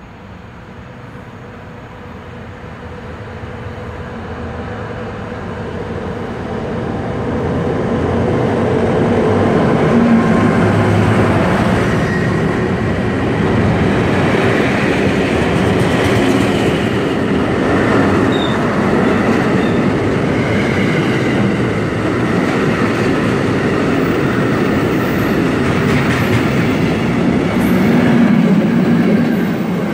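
Yellow engineering train approaching and passing at close range. The rumble of the locomotive and its wagons on the rails grows louder over the first eight seconds or so, then holds steady as the wagons roll by.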